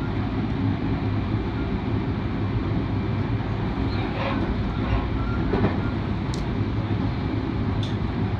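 Running noise of the Rapid Marine Liner electric train heard from inside its driver's cab at speed: a steady rumble and hum from the wheels and motors on the rails. Two short, sharp clicks come in the second half.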